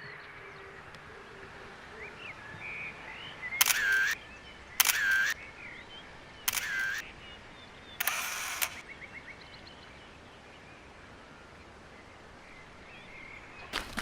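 Camera shutter fired four times, a second or two apart, each a sharp click followed by about half a second of mechanical noise. Birds chirp faintly in the background.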